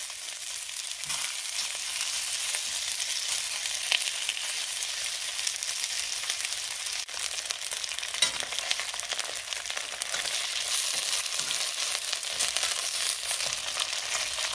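Pork rib pieces sizzling steadily in hot oil in an iron wok over medium heat as they brown, with a few light clicks as the pieces are turned.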